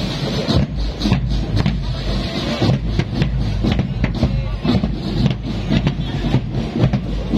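A marching drum corps beating its big marching bass drums with mallets in a loud, uneven rhythm, about two to three strikes a second, with a deep steady boom underneath.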